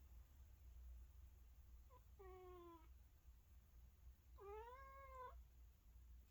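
A domestic cat giving two soft, short mews, each under a second: the first about two seconds in with a slightly falling pitch, the second a couple of seconds later rising and then dropping.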